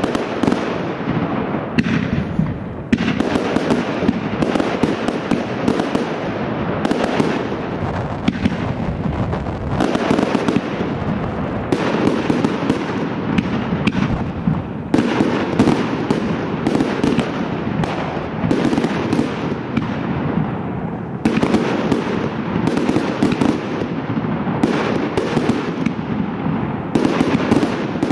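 Professional fireworks display in a continuous barrage: shells launching and bursting overhead in rapid, overlapping bangs with no pause.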